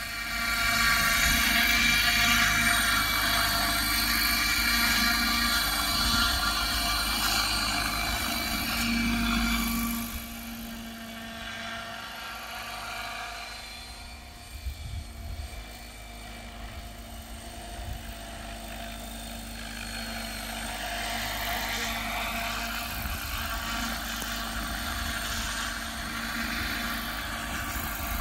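Align T-Rex 600 radio-controlled helicopter in an MD500 Defender scale body, its rotors and motor running with a steady multi-toned whine as it flies. The sound is loudest for the first ten seconds, then drops and runs quieter, building slightly again near the end.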